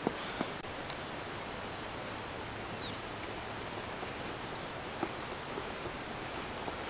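Crickets trilling in a steady, even high tone, with a few faint clicks.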